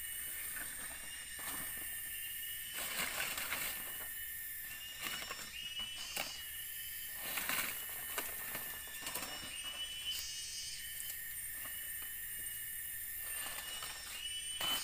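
A steady high-pitched drone of forest insects, with short rustles and snaps of dry leaves and sticks being handled, several times.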